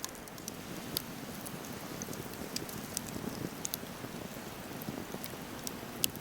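Wood campfire burning: a steady low rush of flame with irregular sharp crackles and pops, one louder pop near the end.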